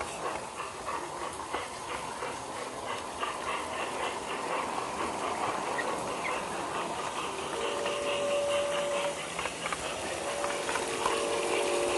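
G-scale garden railroad train rolling along its track, with a steady rushing noise and fine clicking of the wheels. A chord-like steam whistle of several steady notes blows twice, for about a second and a half and then about two seconds, in the second half.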